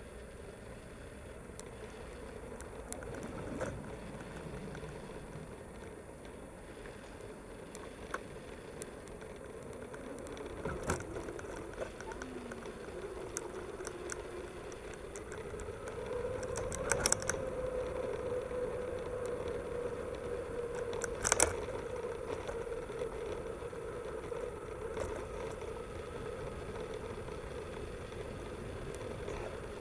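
Mountain bike rolling over brick paving, heard from a handlebar-mounted camera: steady rolling noise with a faint hum that drifts slowly in pitch and light rattling. A few sharp knocks come through as the bike jolts, the loudest near the middle and about two-thirds of the way in.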